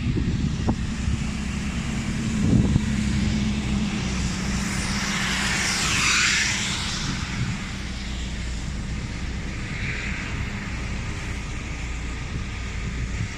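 Vehicle traffic on a motorway in heavy rain: a steady low rumble of engine and tyres on the wet road, under an even hiss. A louder rushing swell comes about six seconds in.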